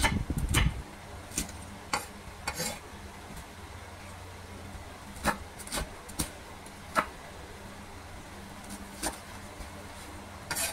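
Kitchen knife chopping young jackfruit on a wooden cutting board: about ten sharp knocks of the blade on the board, irregularly spaced, over a low steady hum.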